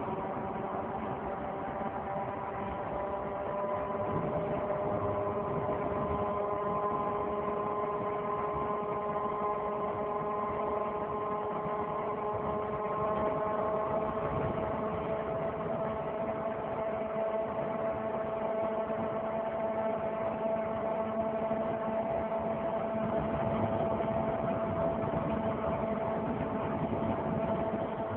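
A 2003 Saturn Vue AWD on the move, with a loud pitched drone from the front driver-side wheel area that rises slowly in pitch as road speed builds. The noise follows wheel speed and is not cured by a new hub.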